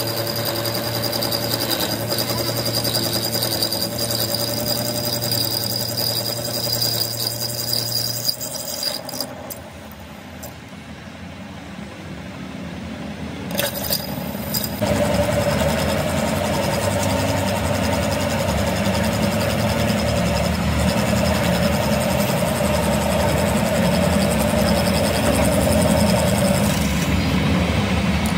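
Metal lathe running, its cutting tool turning down a steel axle shaft and peeling off steel chips, over the steady drone of the lathe's motor and gears. About nine seconds in it goes quieter for a few seconds, then comes back louder and steady from about fifteen seconds on.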